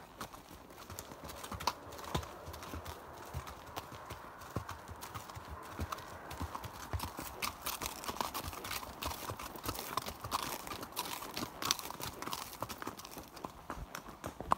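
A ridden horse's hooves striking a gravel road in a steady run of clip-clop beats.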